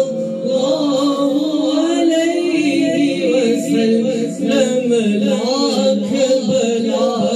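Man singing unaccompanied devotional verse, a naat, into a microphone, with long melodic held notes.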